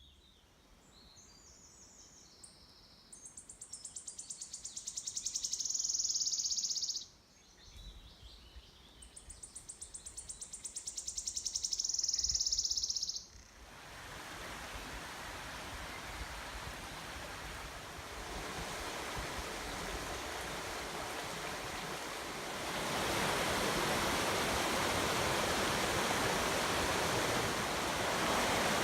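Wood warbler singing two high, sibilant trills, each about four seconds long, growing louder and ending abruptly. After the second trill, rushing stream water takes over and grows louder.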